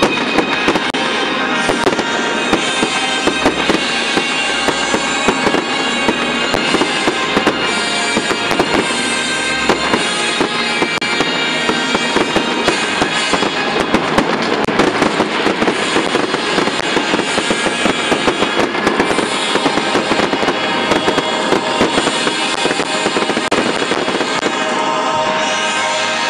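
Fireworks display with dense, continuous bangs and crackling from bursts and fountain fireworks, over music playing.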